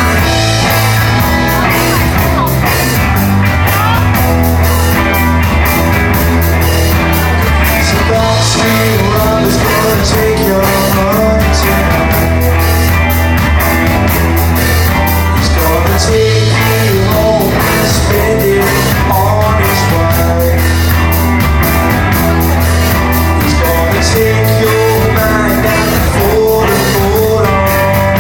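Live rock band playing a song, with drums and bass under a sung vocal line.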